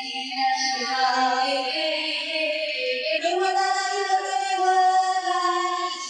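Music with a woman singing long, held notes that change pitch every second or two.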